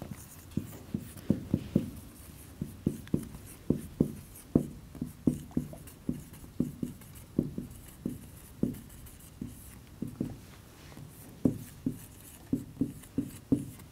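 Marker pen writing on a whiteboard: a run of short, separate strokes and taps, about two a second, in a small room.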